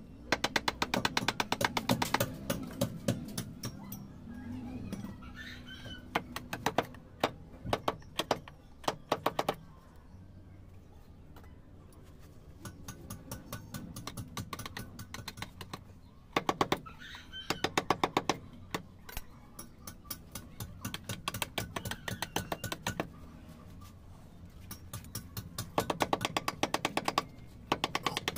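A hammer tapping a steel chisel into soft carving stone, in four runs of quick sharp clicks, several a second, each lasting two to three seconds, with quieter stretches between them.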